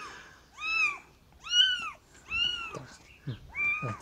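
Kitten mewing repeatedly: about four high-pitched mews, each rising then falling in pitch, less than a second apart.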